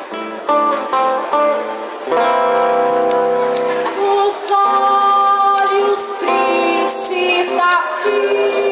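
Live acoustic guitar playing, with a voice starting to sing over it about two seconds in.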